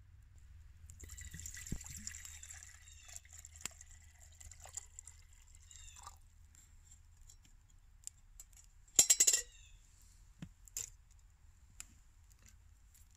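Water poured from a bottle into a stainless steel camp mug for about five seconds, starting about a second in. About 9 seconds in comes a loud metallic clink, with scattered small crackles from the campfire throughout.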